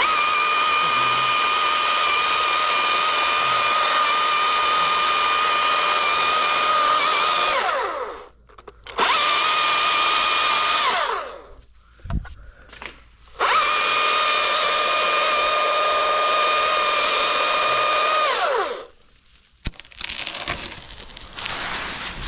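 Battery-powered chainsaw running at full speed in three runs, the first and last several seconds long and a short one between. It starts instantly each time and winds down in pitch to a stop when released, with no idle between runs.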